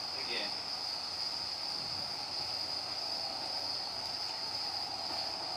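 Crickets trilling steadily in a continuous high-pitched night chorus.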